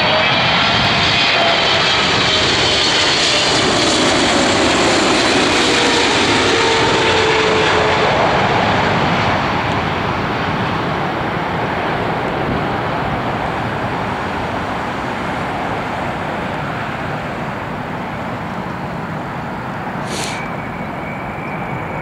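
Boeing 777-300's twin jet engines whining and rumbling as the airliner passes low overhead on landing approach, the whine falling in pitch as it goes by. The noise eases off about nine seconds in as the aircraft drops toward the runway and rolls away. Near the end there is a short hiss, followed by a steady high tone.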